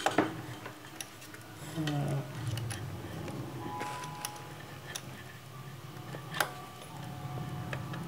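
Scattered light clicks and ticks of tiny screws being fitted by hand into a Mac Pro tower's card mounts, with one louder click about six and a half seconds in.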